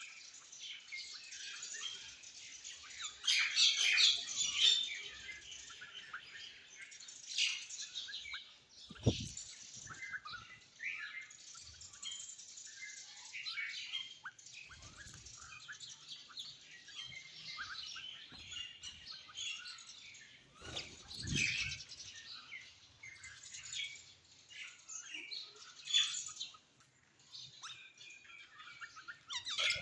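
Several small birds chirping and twittering over each other in a busy, continuous chorus, with a couple of brief low thuds about nine and twenty-one seconds in.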